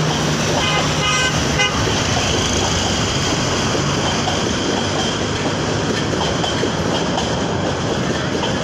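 Steady running noise of a moving train, heard from aboard. About a second in comes a quick run of short horn toots.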